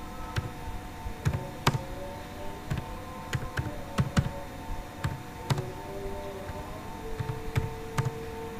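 Computer keyboard typing at an unhurried, uneven pace: about fifteen single keystrokes with short gaps between them.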